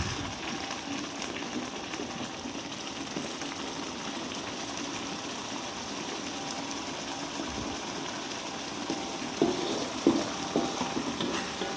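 Spice paste sizzling steadily as it fries in a pan, with a few knocks of a spatula against the pan near the end.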